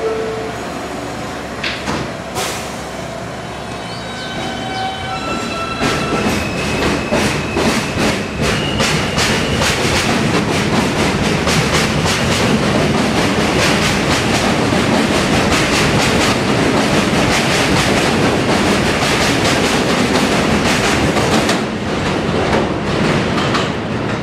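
New York City Subway R160 train departing: a two-tone door chime and a sharp knock as the doors close, then the Alstom traction motors whining up in rising steps as it starts off. The wheels then clatter over the rail joints as the cars pass, easing off near the end as the last car goes by.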